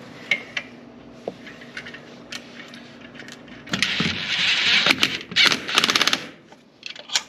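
Lug nuts being run onto new ARP wheel studs with a wrench: scattered metallic clicks and taps, then about four seconds in a rattling burst of about a second, and a second run of rapid clicks near six seconds. The shank-style nuts are binding on the wheel's inner centering collar as they go on.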